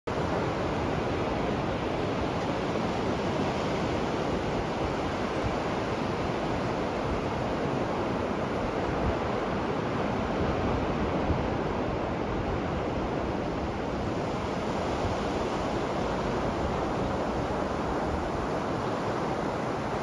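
Ocean surf washing onto a sandy beach, a steady, even rush of noise without distinct separate wave crashes.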